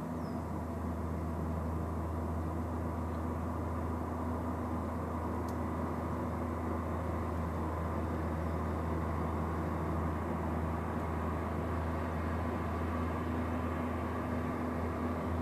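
Diesel train engine running with a steady low drone, growing slightly louder.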